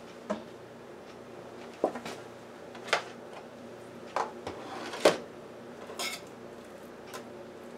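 Scattered knocks and clatters of kitchen handling at a countertop: a plastic food container set down and a kitchen knife picked up. About seven short, sharp knocks, the loudest about five seconds in.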